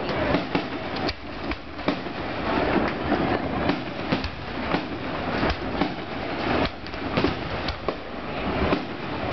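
Aerial fireworks going off one after another: sharp bangs from shell bursts, roughly two a second, over a constant wash of noise.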